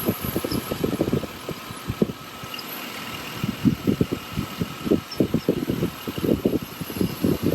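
Pickup truck engine idling under the hood with the air conditioning compressor running, an uneven low rumble with a faint steady whine above it.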